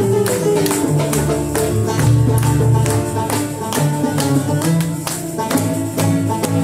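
Live instrumental music from a small traditional ensemble: a plucked lute playing a melody over bass notes, with hand percussion keeping a steady beat of about three strokes a second.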